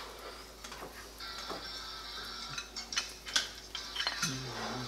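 Cooking clatter at the stove: a utensil and pan clicking and knocking several times over a steady sizzle of pancake batter frying.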